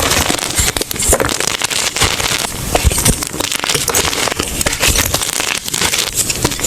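Blocks of gym chalk crushed by hand close to the microphone: a dense, continuous run of loud, crisp crunches and crackles.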